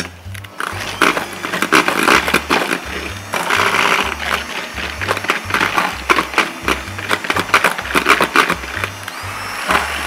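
Kenwood kMix electric hand mixer beating egg yolk batter in a stainless steel bowl, starting about half a second in, its beaters rattling against the bowl in uneven surges. Background music with a bass line plays underneath.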